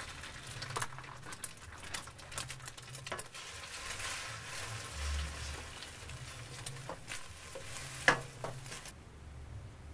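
Beaten egg sizzling in hot oil in a stainless steel wok while a spatula scrambles it, with scattered scrapes and knocks of the spatula against the pan. The sizzle dies down near the end.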